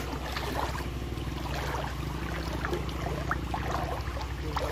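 Shallow stream water splashing and plinking in small scattered drips around wading feet and hands, over a steady low hum.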